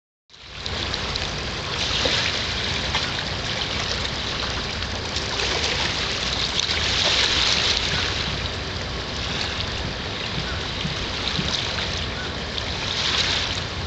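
Steady hissing from bubbles in oil-thickened seawater at the shoreline, almost as if boiling, swelling and fading every few seconds, over a steady low rumble.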